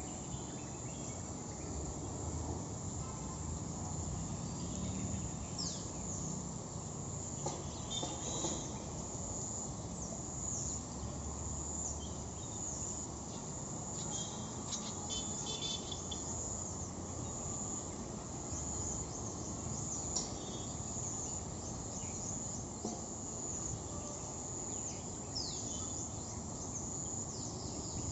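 Steady high trilling of an insect chorus, with short high chirps now and then over a low background rumble.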